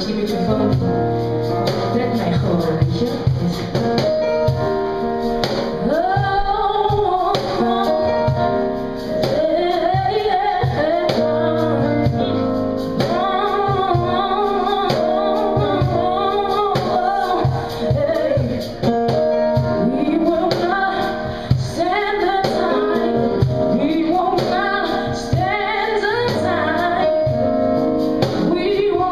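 A woman singing live into a microphone, her held notes arching up and down, over band accompaniment with a steady beat.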